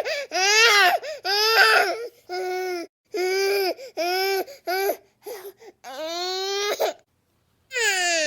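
A baby crying in a rapid string of short, falling wails, about a dozen in all. After a brief silence a long, held wail begins just before the end.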